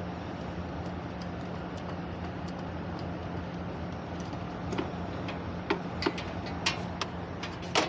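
A steady low machine hum, with a handful of sharp clicks and taps in the second half.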